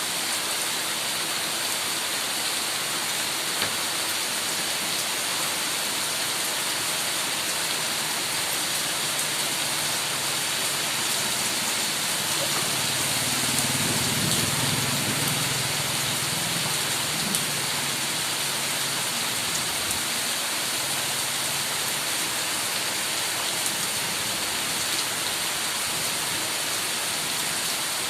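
Heavy rain falling steadily, a dense even hiss. About halfway through, a low rumble swells for several seconds and fades.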